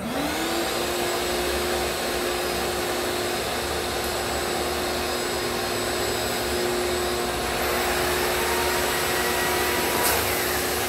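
Shop vacuum switched on as dust extraction for a drywall sander, its motor spinning up within half a second and then running steadily.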